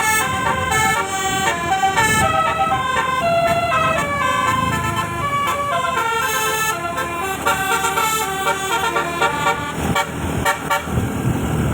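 A bus's telolet horn, a set of musical air horns, plays a quick tune of stepping notes without a break, over the low rumble of the moving vehicle.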